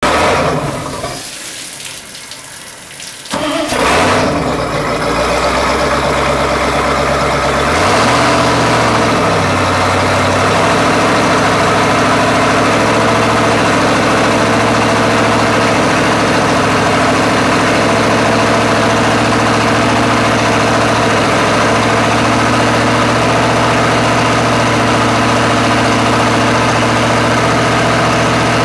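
Straight-piped 1978 Ford 460 big-block V8, with no mufflers, in a JetCraft jet boat run on its trailer. It fires up about three and a half seconds in, revs up and back briefly around eight seconds, then idles steadily at a slightly raised speed.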